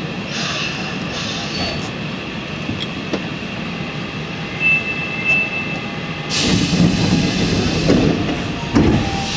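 Osaka Metro Series 70 subway train standing at an underground platform: a steady hum from the train and station. A short high beep sounds about five seconds in, and from about six seconds a louder rush of noise comes in, with a couple of thumps near the end.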